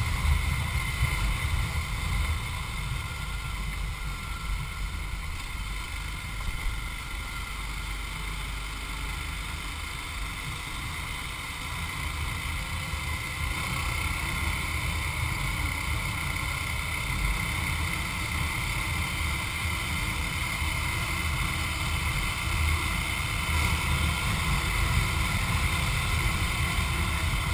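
Motorcycle engine running steadily at cruising speed, heard from the rider's seat, with wind noise over the microphone. It grows a little louder in the second half.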